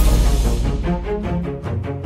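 Background music: a full drum-backed passage thins out in the first half second as its high end fades away, leaving a run of short, evenly paced pitched notes.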